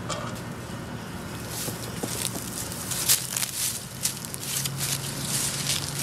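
Short, irregular airy hisses and leafy rustling from a bee smoker being puffed at a top-bar hive and feet moving through ground cover, over a low steady hum.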